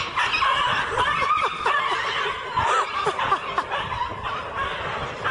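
High-pitched laughter, going on without a break.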